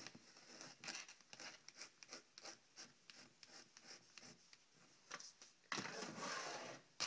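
Faint scratching and rubbing of hands on a plastic squeeze bottle, a run of small irregular clicks, with a louder rub lasting about a second near the end.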